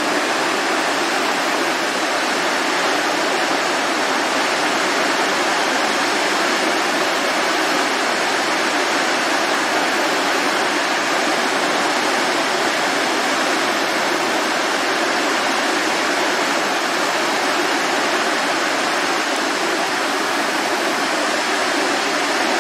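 Floodwater pouring over a low dam and churning in whitewater below it: a loud, steady rush of water. The river is in flood, running far higher and rougher than its usual calm.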